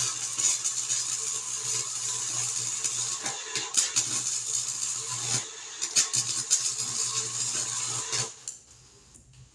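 Welder running a continuous bead on the sheet-metal patches of a truck bed side: a steady crackling hiss with a low hum underneath, cutting off about eight seconds in.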